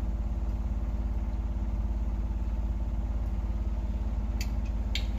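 A steady low hum with a fast, even flutter, and two light clicks near the end.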